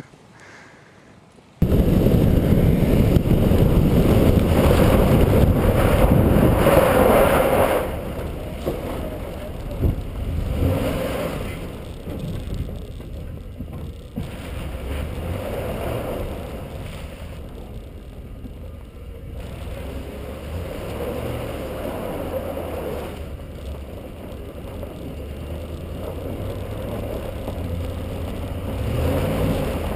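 2010 Ford F-150 pickup driving on a snow-covered ice track, heard from a camera mounted on its side: a loud rush of wind over the microphone and tyre noise, with the engine underneath. It starts suddenly about a second and a half in, is loudest for the next several seconds, and the engine rises in pitch near the end.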